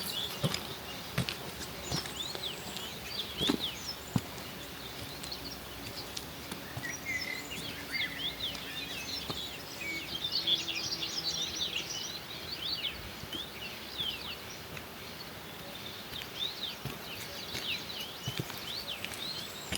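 Several birds chirping and calling in short quick notes, busiest about halfway through, over footsteps on a mountain trail with a few scattered knocks.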